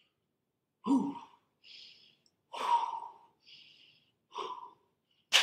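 A person breathing hard: short voiced exhales, like grunts, alternate with breathy hisses about once a second. A sharp crack comes near the end.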